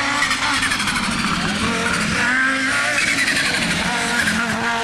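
Rally car engine running hard at high revs, its pitch rising and falling through the throttle and gear changes.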